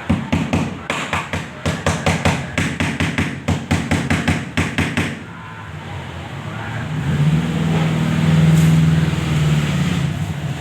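A quick run of sharp knocks, about five a second, for roughly five seconds, then a steady low hum that swells up and eases off again near the end.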